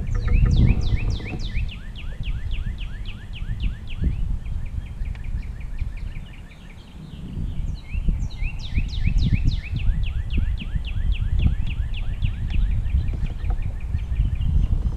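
A songbird singing two long runs of rapid down-slurred notes, about five a second. The first run fades out about six seconds in and the second starts near eight seconds. A low rumble, typical of wind on the microphone, sits underneath throughout.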